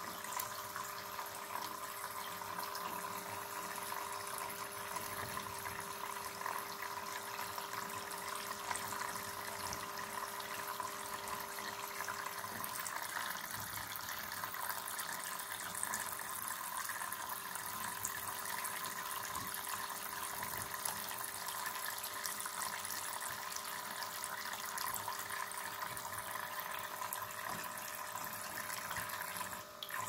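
A thin stream of running water pouring steadily into a plastic bird-bath basin.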